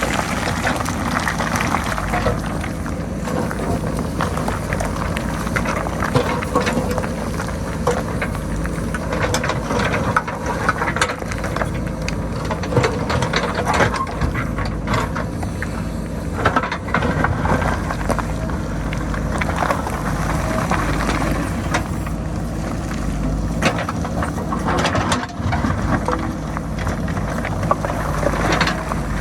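JCB backhoe loader's diesel engine running steadily while its bucket works a rocky hillside, with irregular clatter and knocks of rocks and stones scraping and tumbling down the slope.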